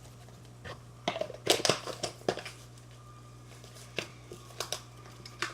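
Plastic containers and packaging being handled: a scatter of sharp clicks and crinkles, busiest about a second and a half in, over a steady low hum.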